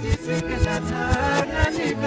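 Loud music with a steady beat and a melody.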